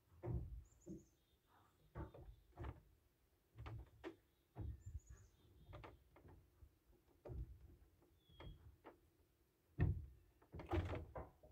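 Faint, irregular knocks and thumps from work on the wooden roof framing, the loudest about ten seconds in, with a few short, high bird chirps.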